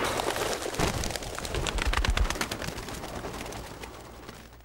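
Pigeons flapping their wings in a flurry of sharp wingbeats, strongest about two seconds in and dying away near the end.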